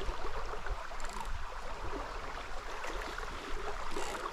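Shallow river water running steadily.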